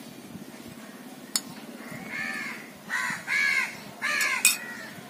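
A crow cawing four times in quick succession, starting about two seconds in, with a sharp click just before the calls.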